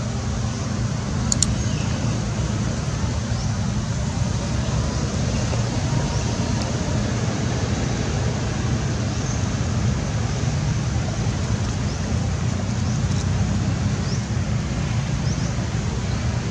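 Steady low rumble of outdoor background noise, with one sharp click about a second in and faint high chirps here and there.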